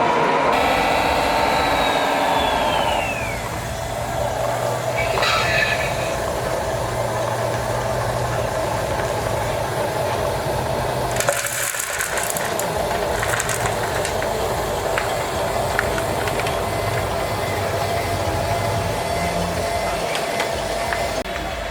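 Electric motors and gears of a radio-controlled model vehicle whining steadily. About a second in, a higher whine falls in pitch over a couple of seconds, and a few sharp clicks come near the middle.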